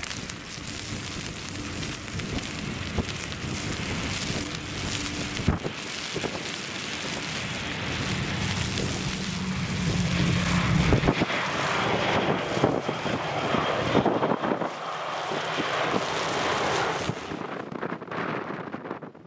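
Strong wind buffeting the microphone and rain, with an Airbus A319's jet engines running as it rolls out along the runway after landing. Louder through the middle, then quieter near the end.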